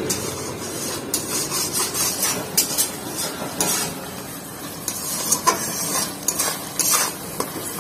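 Spatula stirring and scraping thick masala around a metal kadai in repeated short strokes, over the sizzle of the masala frying in oil. This is the bhuna stage, the masala being fried until the oil separates.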